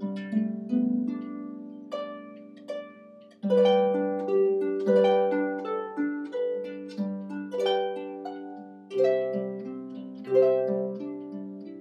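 Solo pedal harp playing a slow piece in plucked notes and chords that ring and fade. The playing thins out near 3 s in, then comes back louder with fuller chords. It is recorded through a computer's recorder, which makes the harp sound a bit tinny.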